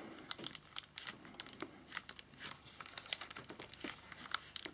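Faint, irregular small clicks and scrapes of metal parts being handled as a Nikon Speedlight SB-7E flash's mounting foot is fitted onto the accessory shoe of a Nikon F film camera.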